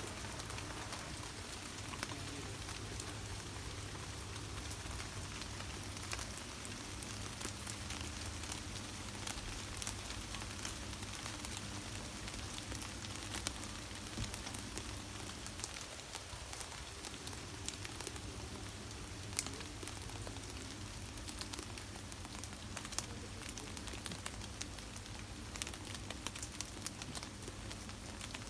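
Steady rain falling on tree leaves, a continuous hiss with many separate drop taps scattered through it.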